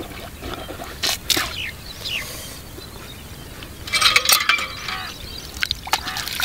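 Metal hand pump being worked: the handle clinks and clanks, loudest in a clattering cluster about four seconds in, with splashing water as a man washes his face from it.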